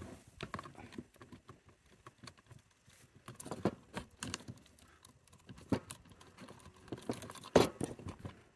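Scattered light clicks and taps of hands handling a small circuit board with its wires and plastic terminal block, setting it down on a wooden table, with a louder clatter near the end.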